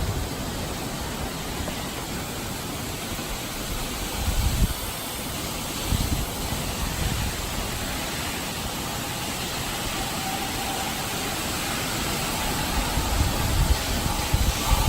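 Strong storm wind rushing steadily, with gusts buffeting the microphone: a low rumbling surge about four and a half seconds in, another about six seconds in, and several near the end.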